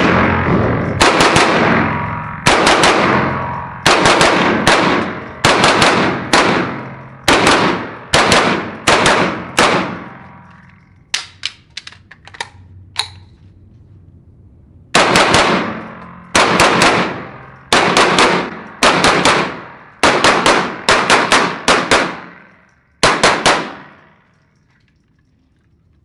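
Smith & Wesson M&P 15-22 .22 rimfire AR pistol fired in quick pairs and strings of shots, each crack ringing out in the hard echo of an indoor range. About halfway through there is a pause with a few fainter clicks, then the firing resumes until a couple of seconds before the end.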